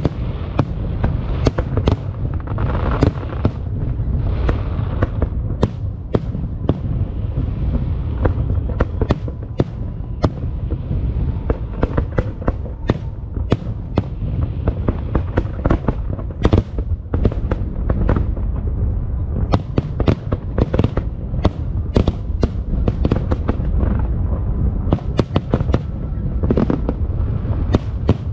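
Fireworks display: a dense, continuous barrage of shells bursting, with many sharp bangs, several a second, over a steady low rumble of booms and crackle.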